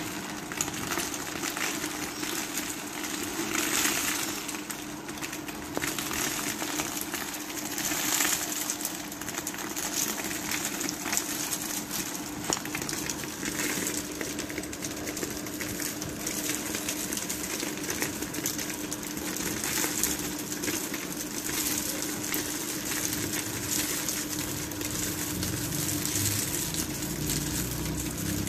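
Crushed groundnut kernels and broken shells poured slowly from a plastic basin, falling in a stream onto the sheet-covered floor as a dense run of small clicks and ticks that swells now and then: winnowing, with the air of an electric table fan blowing the light shells aside. A steady low hum from the fan's motor runs underneath.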